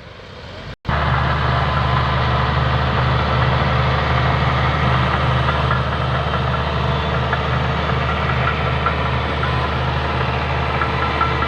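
Heavy diesel engine of earthmoving equipment running steadily, loud and close, with an even low pulse. A quieter rumble in the first second ends in an abrupt cut.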